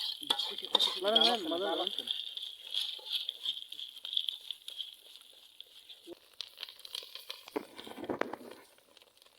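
Noodles frying in a pan while being stirred: a steady sizzle with scattered scrapes and clicks of the spatula against the pan. A brief voice sounds about a second in and again near the end.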